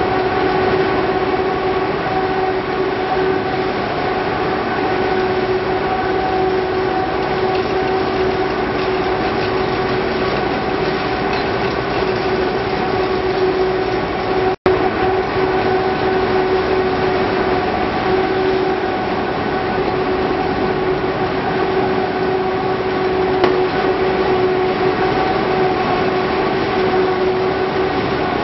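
Production-line machinery running steadily: a loud, even mechanical drone with a constant hum. The sound cuts out for an instant about halfway through.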